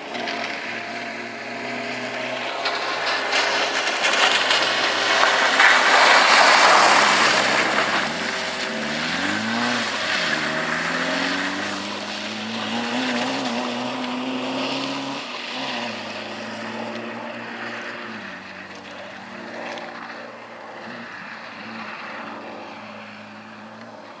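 Peugeot 205 rally car driven hard on a wet gravel track, its engine revving up and down through the gears. It is loudest about six seconds in as it passes, with a hiss of tyres through gravel and puddle water, then the engine note rises and falls through the next corners and fades as the car drives away.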